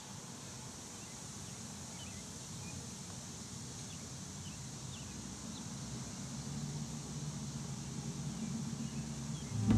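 Outdoor park ambience: a few faint, short bird chirps over a steady high hiss and a low rumble that grows slowly louder toward the end.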